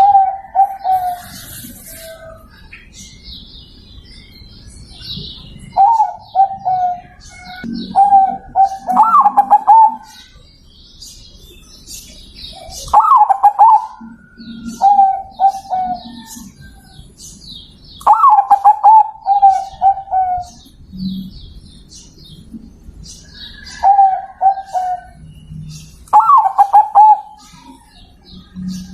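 Zebra dove (perkutut) cooing: about ten phrases of quick, rolling coo notes, each lasting a second or two, repeated every few seconds. Fainter high chirps of other small birds run underneath.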